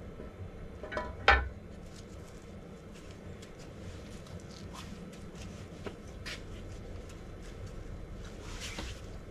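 Aluminium bed plate being seated and shifted by hand on a BMW N55 engine block: one sharp metallic clunk with a short ring about a second in, then faint taps and a brief scrape near the end.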